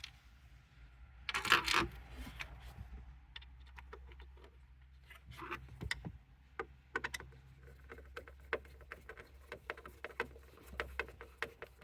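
Hand tools and small parts being handled while car interior trim is screwed back together: a loud clatter about a second and a half in, then a run of scattered clicks and light taps.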